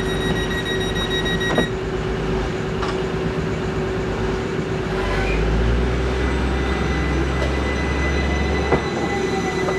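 Diesel train running with a steady engine drone and a deep rumble that swells about halfway through. There are a few sharp metallic knocks, the loudest near the end, and a high steady whine cuts off about a second and a half in.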